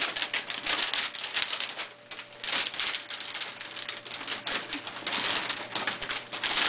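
Gift wrapping paper being torn and crinkled by hand: a rapid, irregular run of crackling rustles with a brief lull about two seconds in.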